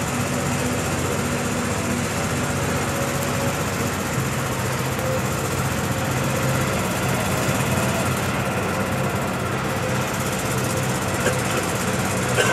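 A machine running steadily with a low, even hum.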